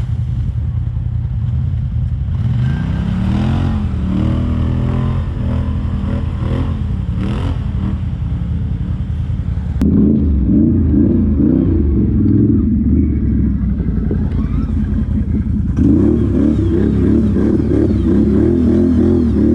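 ATV engine running and revving, its pitch rising and falling over the first several seconds, then pulling harder and louder from about ten seconds in, easing briefly before climbing again near the end.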